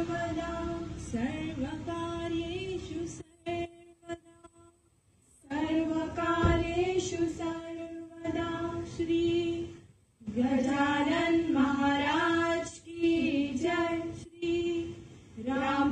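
Group of young women singing a Goan Ghumat Arti devotional song together, with long held notes and a pause of about two seconds a few seconds in.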